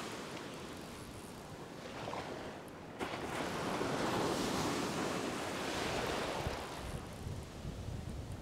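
Surf breaking and washing up the sand, with wind on the microphone. A wave breaks suddenly about three seconds in, and its wash is loudest for the next few seconds before easing.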